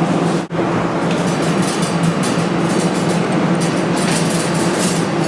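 Claw machine running during a play: a steady mechanical hum with a light rattle as the claw mechanism moves. It breaks off for an instant about half a second in.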